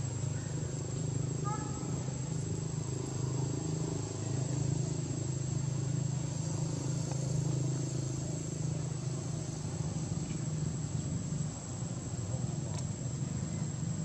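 Outdoor ambience: a steady, high-pitched insect drone over a low background murmur, with a few faint short chirps about a second and a half in.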